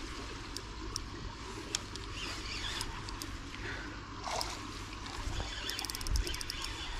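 A hooked pike thrashes and splashes at the surface of the river while it is played on a light spinning rod. There are scattered sharp clicks, and a quick run of clicks about six seconds in.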